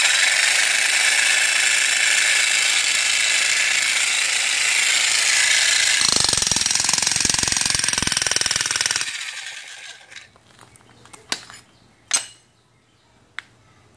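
Stark 2200 W electric demolition hammer with a spade bit pounding into soil. It starts at once and runs steadily, turning deeper and heavier about six seconds in as the spade digs into the dirt. About three seconds later it shuts off and winds down, and a few sharp knocks follow near the end.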